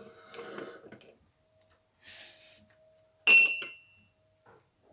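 Glass and ceramic dishes clinking on a glass plate as small bowls and a glass of rock salt are handled, with a sharp ringing clink about three seconds in.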